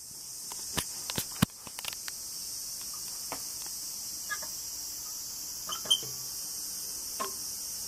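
A steady, high-pitched chorus of summer insects, with a few sharp clicks in the first couple of seconds and fainter scattered ticks after.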